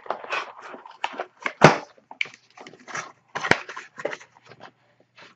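A sealed cardboard hockey-card box being handled and opened on a desk: scraping and rustling of cardboard, with two sharp knocks, one under two seconds in and one about three and a half seconds in.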